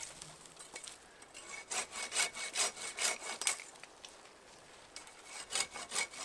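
Curved-blade pruning saw cutting through dead wood with quick back-and-forth rasping strokes. The strokes come in two runs, a brief pause between them, the second starting near the end.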